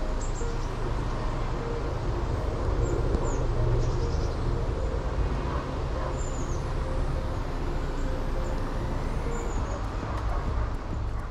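Outdoor riverside ambience: a steady low rumble with a faint engine-like hum, under a few brief high bird chirps.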